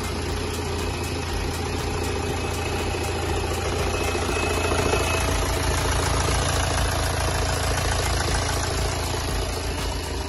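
Freshly rebuilt BMW N47 2.0-litre four-cylinder turbodiesel running at a steady idle in a 2008 320d.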